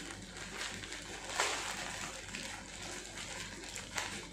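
Plastic courier mailer bag rustling and crinkling as it is torn open by hand, with louder crackles about a second and a half in and again near the end.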